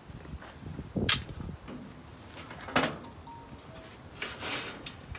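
Two sharp knocks a little under two seconds apart, then a short scraping clatter near the end.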